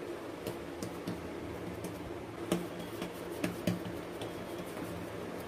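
A few soft clicks and taps as oiled hands press potato dough flat on a marble board, over a steady low hum.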